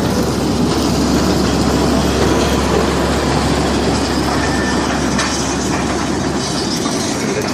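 Loud, steady rumbling noise of a moving vehicle.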